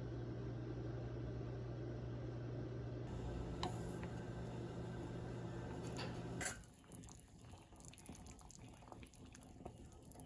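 A steady low hum for the first several seconds, with a couple of sharp clicks, then it drops away to the quieter, sparse bubbling and small pops of a pot of water with chicken wings and diced vegetables simmering.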